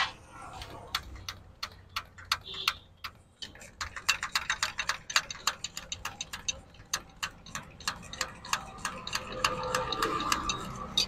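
Hand primer pump on a John Deere tractor's diesel fuel filter being worked, its plunger clicking in a fast, even rhythm of about four or five clicks a second. This is priming the fuel system to bleed out air after new diesel filters have been fitted.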